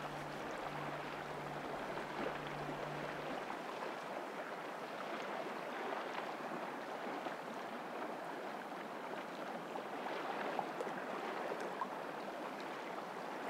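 Steady rushing water, with a low hum underneath that stops about three and a half seconds in.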